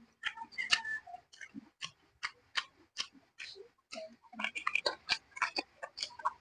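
Mouth smacks and clicks of someone chewing braised pork hock (paksiw na pata): irregular sharp clicks a few times a second, busier just past the middle.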